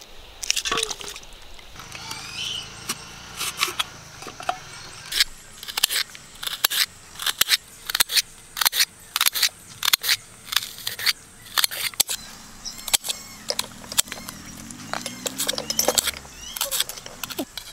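Kitchen knife slicing a red onion on an aluminium plate: a steady run of sharp chopping clicks, about two a second.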